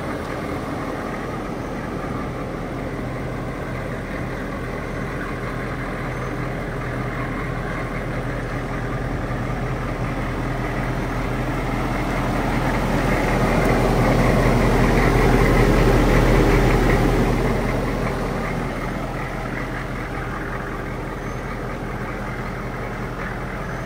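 2012 AM General M1165 HMMWV's 6.5-litre turbo-diesel V8 idling steadily, growing louder for a few seconds midway and then easing back to its earlier level.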